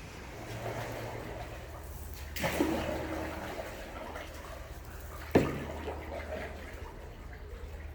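Steady rushing water, with a low steady hum underneath and two brief knocks, about two and a half and five and a half seconds in.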